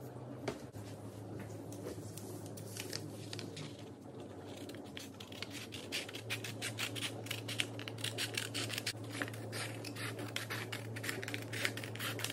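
Scissors cutting through painting paper in a fast series of crisp snips, sparse at first and denser and louder over the second half. A steady low hum runs underneath.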